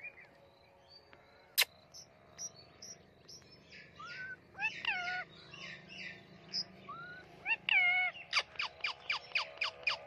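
Birds calling: scattered short chirps and a few whistled calls that fall in pitch, then near the end a fast, even run of short sharp calls, about three a second. A single sharp click comes about a second and a half in.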